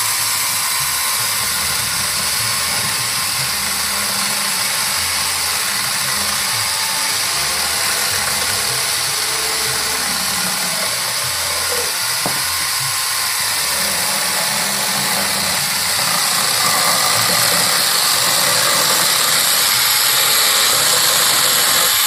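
Small electric mini chainsaw running steadily with its chain cutting into a block of wood. The motor and chain grow a little louder about two-thirds of the way through.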